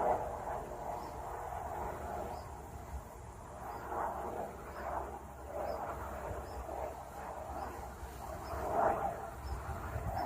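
Helicopter running, a steady low drone with rising and falling swells.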